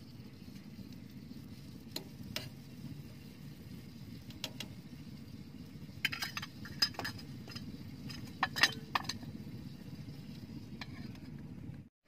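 Metal cookware clinking on a small tent wood stove: a couple of sharp clinks about two seconds in, a cluster around six to seven seconds and another near nine seconds, the last the loudest, over a steady low rumble.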